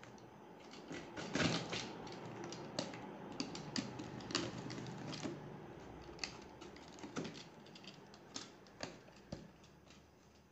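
Packing tape on a cardboard shipping box being slit with a utility knife and the flaps pulled open: irregular crackles and sharp clicks of tape and cardboard, loudest about a second and a half in.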